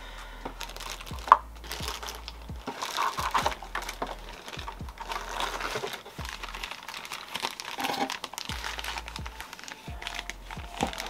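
Packing materials crinkling and rustling as they are handled and pulled from the box, with a sharp snap about a second in.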